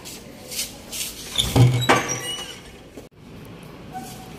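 A wooden door being opened: a bump and a latch click about one and a half seconds in, followed by a few short high squeaks.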